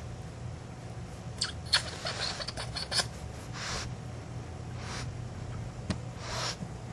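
Pug puppies shifting about on blankets in a cardboard box: soft rustles and scratches, a quick run of small clicks in the second and third seconds, and a few short hissy rustles, over a steady low hum.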